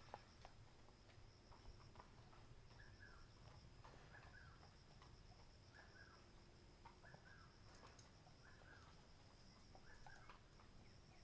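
Faint outdoor ambience: a bird repeats a short, slightly falling chirp about every second and a half, over a steady high insect chirring.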